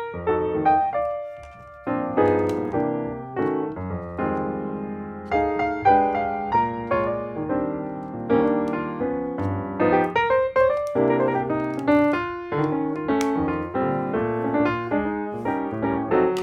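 Background piano music with notes in a steady rhythm.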